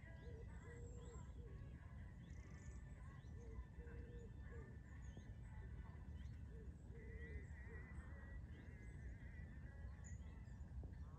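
Faint outdoor ambience: a steady low rumble with repeated short animal calls and chirps, including a warbling call about seven seconds in.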